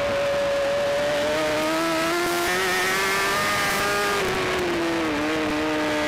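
BMW S1000RR inline-four engine under load, heard from on the bike over wind rush. Its note climbs slowly for about three seconds, drops about four to five seconds in, then holds steady.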